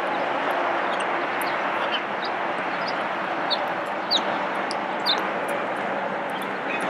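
Steady rushing background noise with a scattering of about ten short, high bird chirps.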